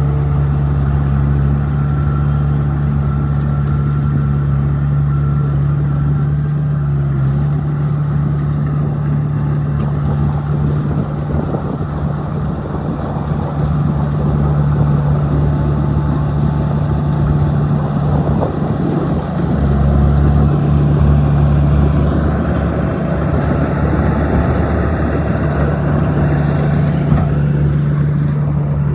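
Bulldozer's diesel engine running steadily and loudly, its low hum shifting in strength a few times.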